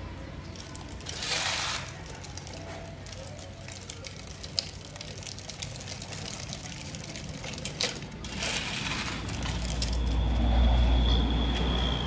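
Toy dump truck's wheels rolling and scraping on gritty pavement tiles, in short gritty spells and a few clicks. Near the end a passing vehicle's low rumble builds and becomes the loudest sound.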